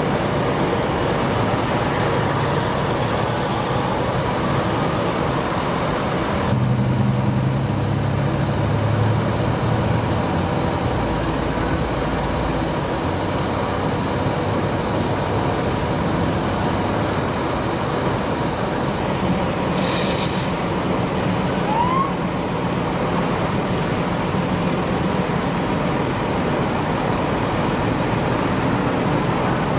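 Steady freeway traffic noise over a low hum of idling engines, with one short rising tone about three quarters of the way through.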